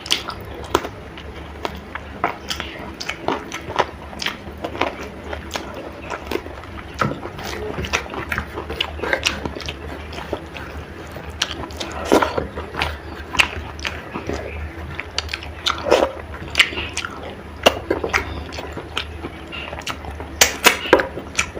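Close-miked eating of chicken curry with rice: chewing with irregular wet smacks and clicks, several a second.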